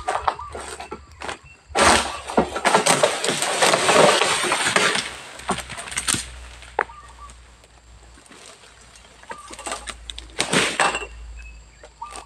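Oil palm fronds rustling and crashing as a long-poled harvesting sickle cuts and pulls them down: a long, loud rustle about two to five seconds in, a few sharp snaps, then a shorter rustle near the end.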